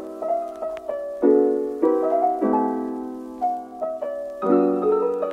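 Background piano music: chords struck every second or two and left to ring and fade, with single notes in between.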